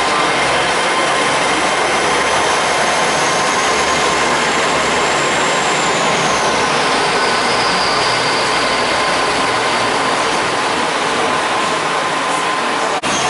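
GWR Class 800 intercity train running past along the platform: steady running and wheel noise with a high whine that glides down in pitch about six seconds in.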